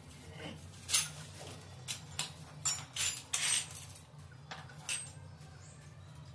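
Chrome-plated metal wall-mixer fittings clinking and knocking against each other and the tiled floor as they are handled and set down: a string of sharp clinks, about eight of them, between one and five seconds in.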